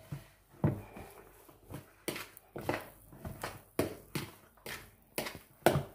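Potato samosa filling being stirred and mashed with a utensil in a cooking vessel: irregular knocks and scrapes of the utensil against the vessel, about two or three a second.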